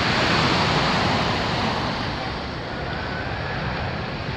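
Surf washing onto a sandy beach: the rush of a wave swells in the first second or two, then eases off.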